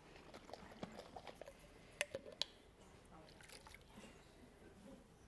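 Faint clicks and handling noise from a glass mason jar and its metal lid, with a few sharp clicks about two seconds in, as the jar of flour and potato water is opened and dealt with over the stew pot.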